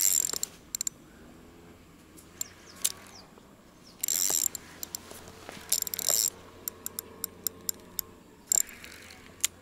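Spinning reel's drag buzzing in several short bursts as a hooked silver carp pulls line off the spool, with separate sharp clicks from the reel in between.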